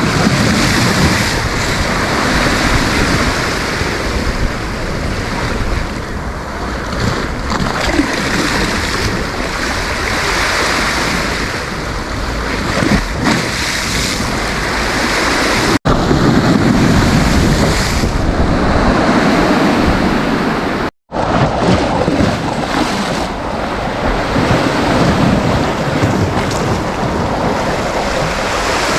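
Sea waves breaking and washing up the beach in slow swells, with wind buffeting the microphone. The sound cuts out briefly twice around the middle.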